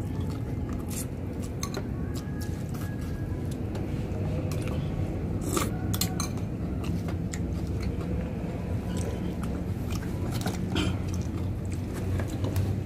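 Close-up eating sounds: a man chewing and smacking his lips on grilled duck, with scattered small wet clicks as he tears the meat apart with his fingers. A steady low hum runs underneath.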